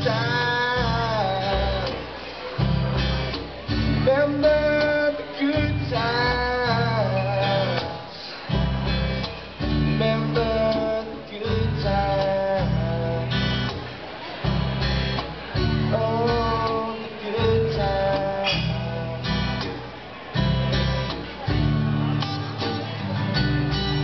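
Live acoustic song: a man singing over a strummed acoustic guitar, with a djembe hand drum keeping the beat.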